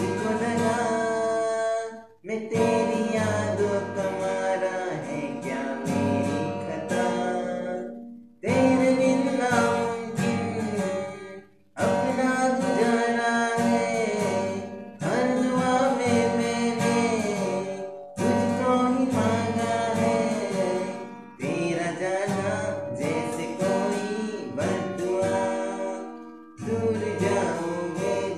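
A man singing with his own acoustic guitar accompaniment, in sung phrases of a few seconds separated by short breaths.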